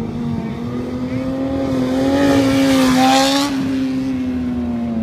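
Sport motorcycle engine held at steady high revs during a wheelie. It grows louder to a peak about three seconds in as the bike comes close.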